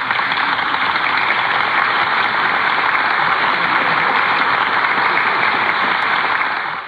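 Audience applauding steadily, cutting off at the very end.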